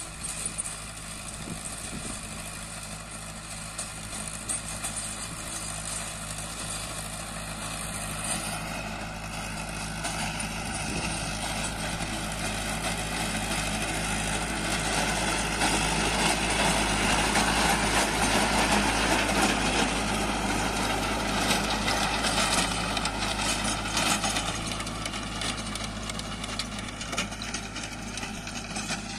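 Mahindra Arjun 555 DI tractor engine running steadily under load as it pulls a rotavator tilling the soil. It grows louder as the tractor comes close, is loudest a little past the middle, then eases off as it moves away.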